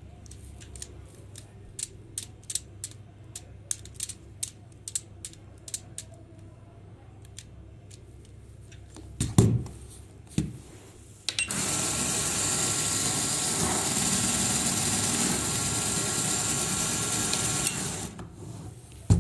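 Small electric motor driving a Lego Technic gearbox: a steady whir with a high whine, starting about eleven seconds in and cutting off abruptly near the end. Before it, a run of sharp plastic clicks as the gearbox is handled, and two knocks as it is set down on the table.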